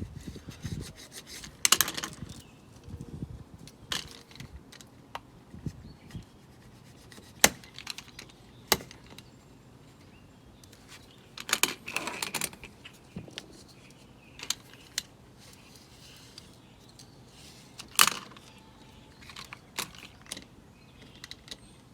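Rubber spline being pressed into the groove of a window screen frame while the screen mesh is stretched: scattered clicks and scraping rustles, with a few louder scraping bursts.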